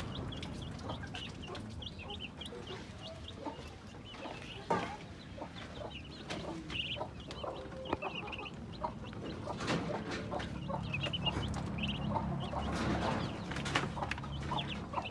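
Muscovy ducklings peeping, a busy chorus of short high cheeps overlapping one another, with scattered small knocks and a low steady hum underneath.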